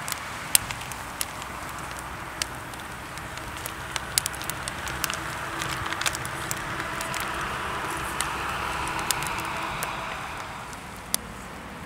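Wood fire crackling: irregular sharp pops and snaps over a steady hiss.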